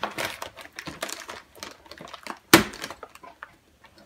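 Foil-lined Capri Sun drink pouches crinkling as they are handled and turned under the sewing machine's needle, with one sharp click about two and a half seconds in.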